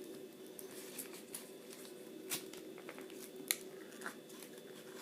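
Scissors working at stiff plastic blister packaging: scattered small snips, crackles and rustles, with two sharper snaps in the middle, over a faint steady hum.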